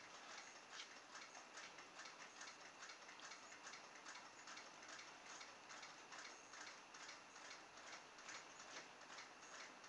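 Near silence with faint, regular ticking, several ticks a second.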